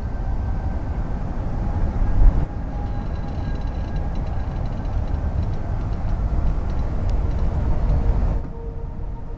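Steady low rumble of a train running over a steel bridge, with one sharp bang about two seconds in; the rumble cuts off abruptly near the end.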